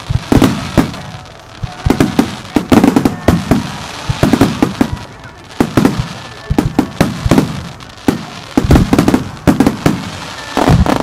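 A starmine of aerial firework shells bursting in rapid volleys. Sharp bangs come in quick clusters with booming echoes after them, and there are short lulls between the volleys.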